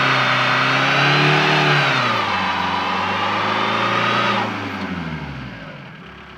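Built 5.9 Cummins diesel in a 2007 Ram 2500 under power. The revs drop about two seconds in and the sound fades away after about four seconds.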